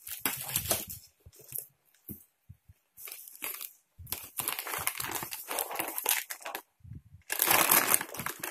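Plastic wrapping and the foil-lined thermal delivery bag crinkling and rustling in irregular bursts as they are handled and unfolded by hand. The loudest bout comes near the end.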